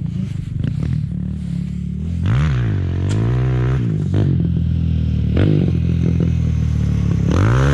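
Single-cylinder four-stroke dirt bike engine running close by, revved up about two seconds in and again a little later, with a short blip near the middle and a stronger rev near the end.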